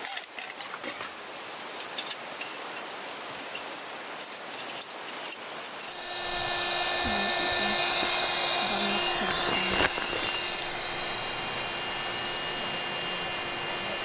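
Small electric air pump running steadily with a motor whine as it inflates a Klymit Static V Luxe sleeping pad, starting about six seconds in. Before it starts, only light handling clicks over a steady background hiss.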